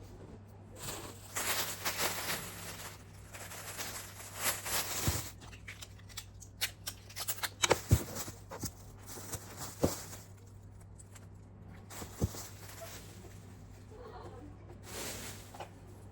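Rustling and handling sounds with several sharp clicks, over a faint steady low hum.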